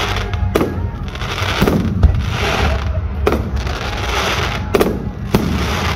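Display fireworks going off: about six sharp bangs roughly a second apart, the loudest about two seconds in, with crackling in between.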